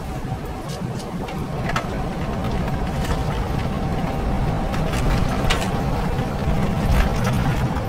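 Engine and road rumble of a moving vehicle heard from inside its cabin, steady and low, with a thin constant whine and a few brief clicks or rattles.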